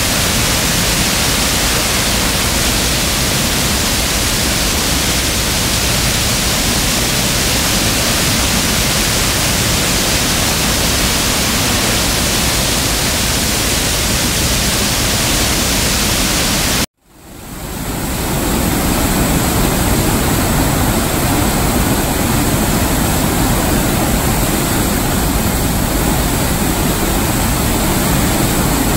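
Steady, loud rush of a waterfall swollen with muddy floodwater after heavy rain, pouring over the ledge and churning in the river below. About two-thirds of the way through the sound cuts out abruptly and fades back in within a second.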